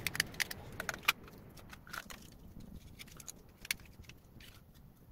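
Scattered sharp clicks and light rattles of a DeWalt 18V battery pack's plastic cell holder and lithium-ion cells being handled and pried apart, most of them in the first two seconds.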